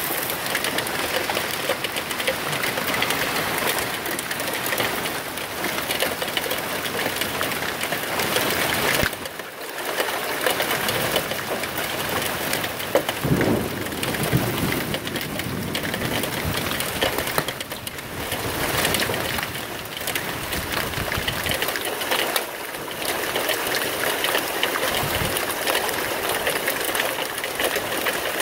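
Hailstones and rain pelting down in a dense, steady crackling patter, easing briefly a few times.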